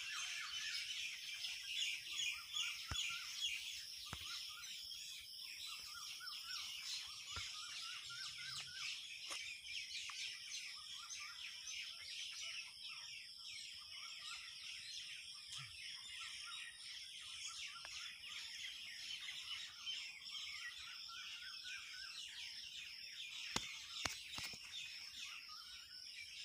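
Many quail calling at once: a dense chorus of short, repeated, overlapping chirps over a steady high hiss. Two sharp clicks come near the end.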